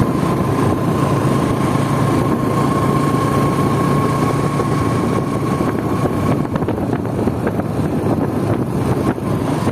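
Motorbike engine running while riding, with road and wind noise; a steady whine stops about six seconds in.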